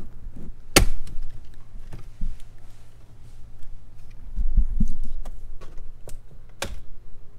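Jeep Gladiator's plastic lower dash panel being pulled off by hand: sharp clicks as its clips let go, the loudest about a second in and another near the end, with dull knocks and rubbing of the plastic in between.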